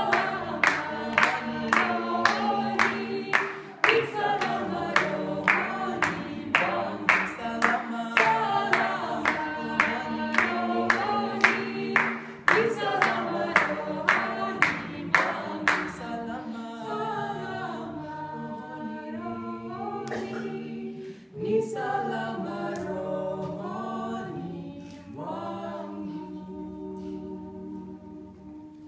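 A mixed group of five voices singing a Swahili hymn a cappella in harmony, keeping time with hand-claps about twice a second. The clapping stops about halfway through and the singing carries on softer, dying away near the end.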